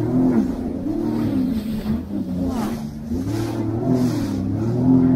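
Jet ski engine running at speed, its pitch rising and falling several times as the throttle is worked, over a steady rushing noise.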